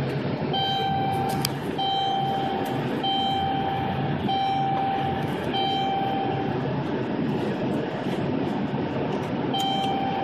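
Steady rumble of a vehicle driving on a snowy highway in a blizzard, heard from inside. An electronic beep sounds five times, each about a second long, then stops and sounds once more near the end.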